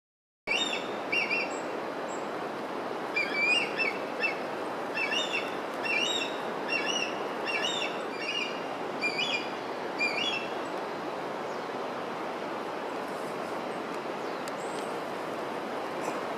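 A songbird chirping in short repeated phrases, about one to two a second, that stop about ten seconds in, over a steady rushing background noise.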